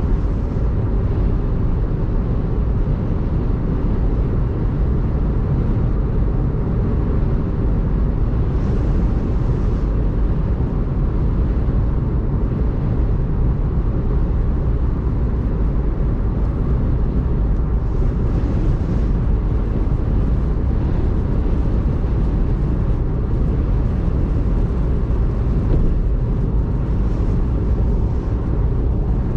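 A car driving at speed on a rain-soaked expressway: steady low road and tyre rumble from wet pavement, with a faint hiss that swells briefly three times.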